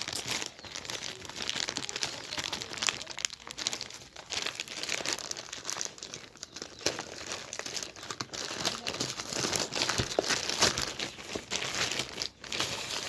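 Parcel packaging crinkling and rustling as it is handled and opened by hand, with irregular crackles throughout.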